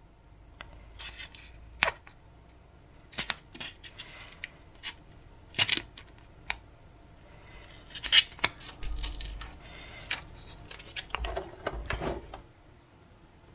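Handling noises: scattered small clicks and crinkling as a strip of red adhesive tape is peeled from its backing and pressed onto a 3D-printed PLA model-plane fuselage.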